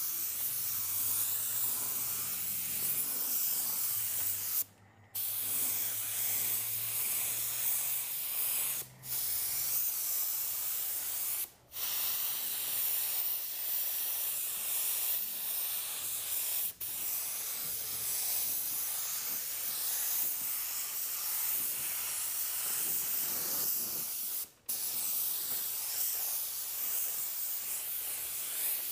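Gravity-feed automotive spray gun hissing as it lays down a coat of basecoat, steady through each pass. The air cuts off suddenly about five times as the trigger is released between passes.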